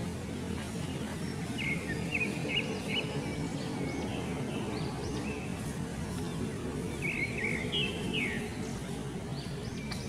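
Background music with a steady low bed, over which come short high chirping calls in two bursts, about two seconds in and again near eight seconds, with more starting at the end.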